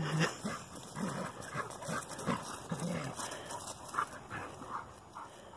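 Two small dogs play-fighting, giving a run of short yips and whimpers, about two a second, with paws scuffling on the grass.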